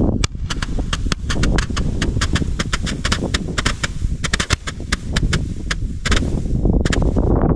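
Consumer firework star-shot battery (Leuchtkugelbatterie) firing its stars one after another. A rapid, irregular run of sharp cracks and pops sounds over a continuous low rushing noise, which swells about six seconds in.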